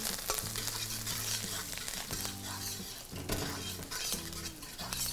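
Hot oil sizzling in a steel kadai as a tempering of mustard seeds, dried red chillies, dals, cashews and fresh curry leaves fries, with a flat metal spatula scraping and stirring against the pan in scattered clicks.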